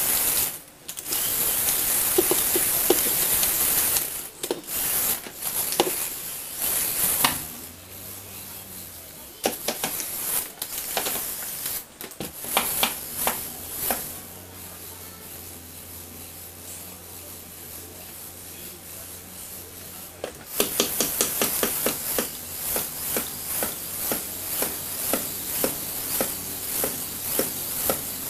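Lego Technic two-wheeled toy spinning on a wooden floor, its rubber tyres scrubbing against the boards with scattered clicks and knocks. The noise drops for a long middle stretch to a low steady hum, then picks up again near the end with clicks about two a second.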